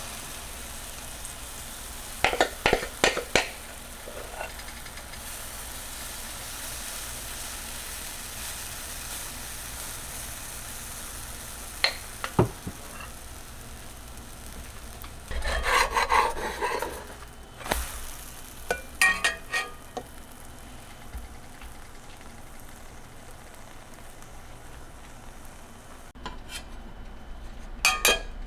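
Food sizzling in a frying pan, with scattered clinks and short clatters of utensils and dishes.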